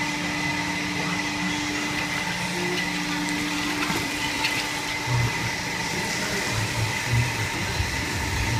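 Wash-pit machinery running with a steady hum and a faint high whine, while sudsy rinse water gushes from a pipe into the rug-washing pit's sump. A few dull thumps come in the second half.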